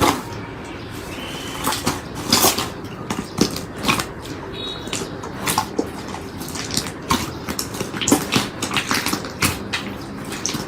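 Slime being squeezed, stretched and poked close to the microphone, giving irregular sticky pops and crackling clicks over a soft steady hiss.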